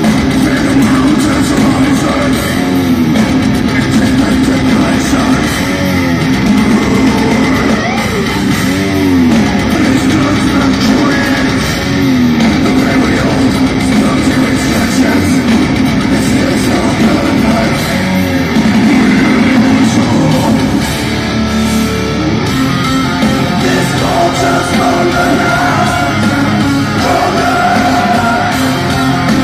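Heavy metal band playing live at full volume, heard from the crowd in a large arena hall: distorted electric guitars, bass and drums, with a sliding guitar figure recurring about every three seconds in the first half.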